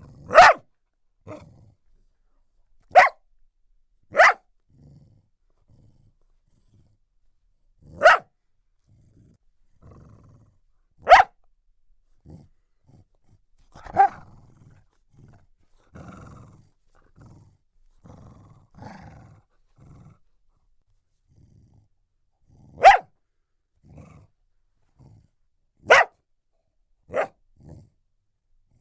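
Australian cattle dog barking: about nine sharp single barks a few seconds apart, with low growls and quieter rough vocal sounds between them.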